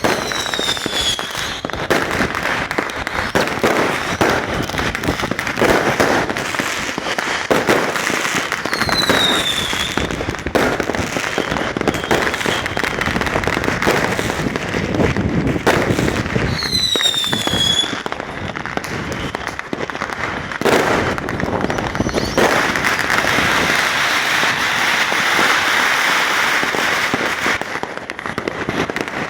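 Fireworks going off continuously, many bangs and crackles overlapping. A whistling firework sounds three times, its pitch falling each time. In the last several seconds there is a dense stretch of crackling.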